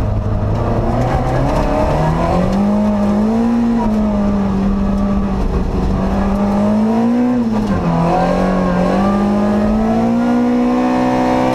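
Ford Ka rallycross car's 1600 engine heard from inside the cabin under hard driving. The revs climb about two seconds in and hold high, drop sharply near eight seconds, then climb again toward the end.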